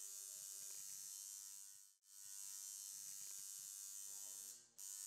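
Tattoo machine buzzing steadily and faintly. It cuts out briefly about two seconds in and again near the end.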